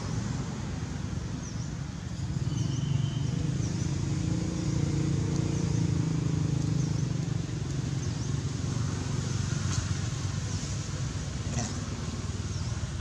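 Steady low rumble with an even hiss above it, and short high chirps about once a second.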